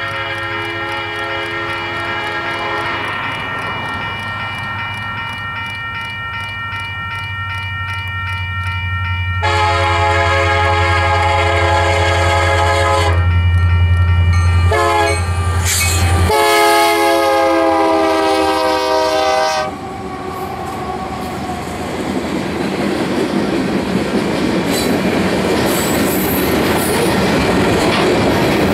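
Union Pacific freight train with SD70M, SD70ACe and C44AC diesel locomotives approaching and passing. Its multi-note horn sounds long, long, short, long, the grade-crossing signal, and the last long blast drops in pitch as the locomotives go by, over a diesel engine hum that grows and then fades. The freight cars then roll past with steady wheel rumble and clatter.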